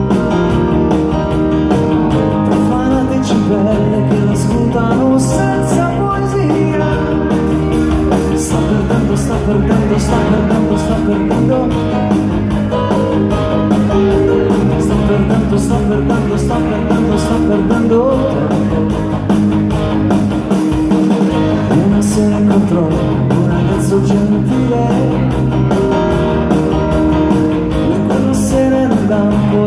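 An 1980s Italian pop song played live from a Ketron SD9 arranger keyboard, with a steady drum beat and a male voice singing at times.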